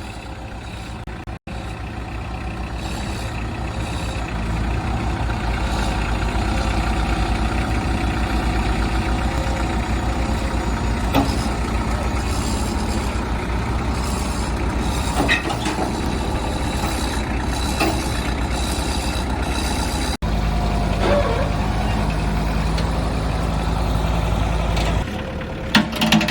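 Heavy diesel engine running steadily and loudly, with a few short knocks and clanks over it.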